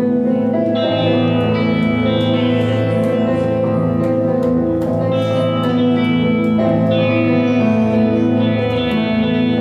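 Guitar playing a slow chord progression with echo and reverb, the ringing chords changing every second or two.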